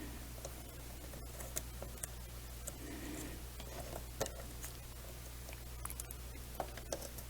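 Faint, scattered small clicks and taps of hands working carbon fiber frame parts and small screws, taking a bolt saver plate back out of a quadcopter frame.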